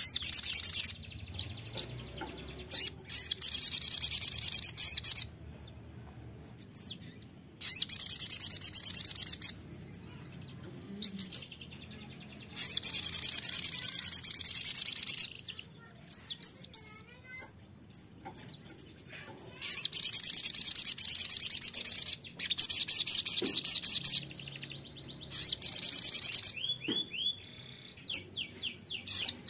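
Sunbird ('sogon') singing: repeated bouts of a high, very fast trilling song, each one to three seconds long, with short chirps in the gaps between.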